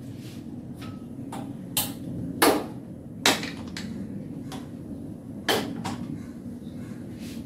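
Aluminium pressure cooker being closed and handled: about ten sharp metal clanks and clicks of the lid and body knocking together as it is fitted and lifted onto a gas stove, the loudest about two and a half and three seconds in, over a steady low hum.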